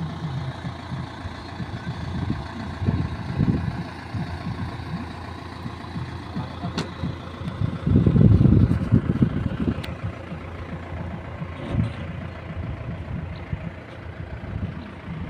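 Heavy diesel engines idling, from a Komatsu D85E-SS crawler dozer and a self-loader truck, with a louder rumble for about a second and a half some eight seconds in. A couple of sharp clicks are also heard.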